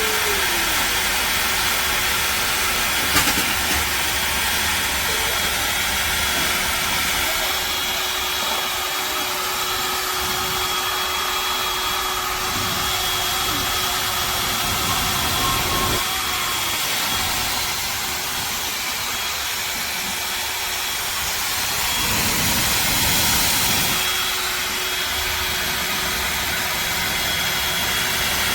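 Brushless-motor ionic hair dryer running steadily: a constant rush of blown air with a faint steady whine from the motor.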